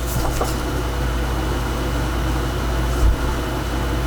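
A steady low mechanical hum, with a few faint clicks near the start and a short low thump about three seconds in.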